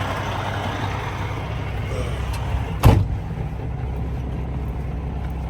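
Semi truck's diesel engine running steadily at low speed, with a single sharp knock about three seconds in.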